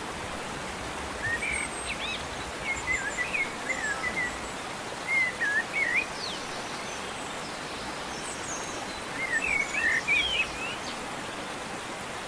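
Small birds chirping in short runs of quick, curving notes, three times, over the steady rushing hiss of a mountain stream.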